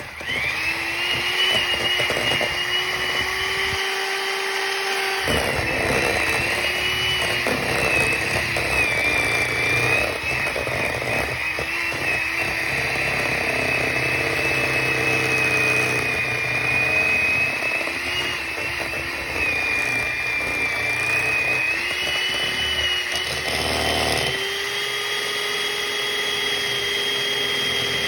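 Electric hand mixer running continuously, its beaters working softened butter in a bowl. A steady motor whine wavers a little in pitch as the load changes, with scattered knocks from the beaters.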